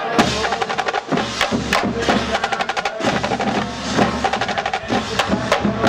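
Marching band drum line playing a fast cadence: rapid snare strokes with drum hits in a steady rhythm.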